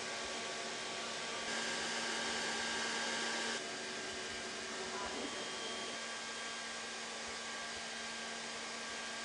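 Steady machine hum and hiss with a few faint steady tones, stepping louder for about two seconds shortly after the start and then settling back.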